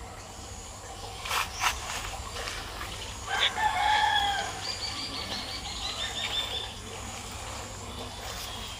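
A rooster crowing once, about three seconds in, followed by a run of rapid high notes. Two brief knocks come a little before it, over a steady low background hum.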